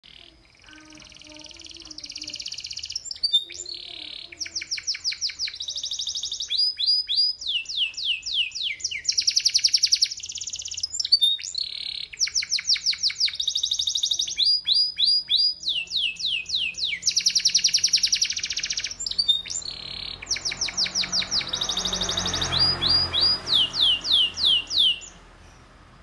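Canary singing a long, unbroken song of rapid trills, quick runs of falling notes and buzzy rolls, switching phrase every second or two, and stopping about a second before the end.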